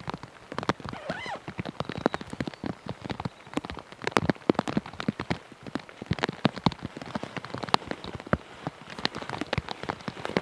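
Rain falling, the drops landing as many sharp, irregular clicks close to the microphone.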